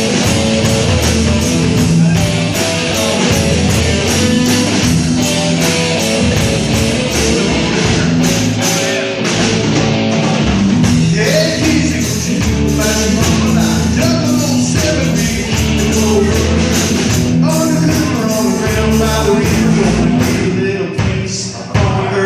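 Rock music: a full band with a steady drum beat and held guitar notes, loud throughout, with a brief drop in level near the end.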